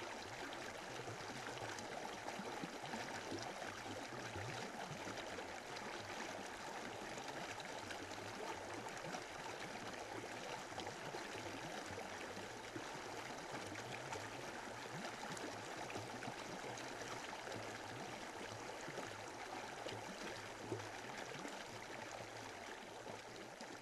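Steady rush of running water, like a stream, beginning to fade near the end.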